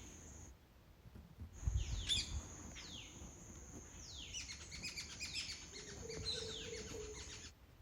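Indian ringneck parrots calling: a run of high calls that sweep down in pitch, some overlapping, over a steady high whine. A few low bumps about two seconds in.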